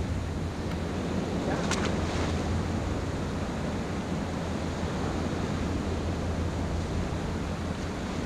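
Sea surf washing against a stone breakwater, with wind buffeting the microphone as a steady low rumble. A brief, sharper sound stands out about two seconds in.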